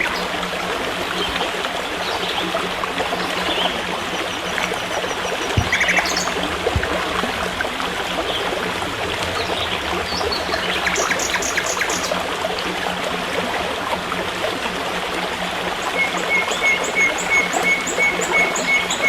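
A forest stream flowing steadily, with birds chirping now and then. Near the end, a bird repeats one short note about three times a second.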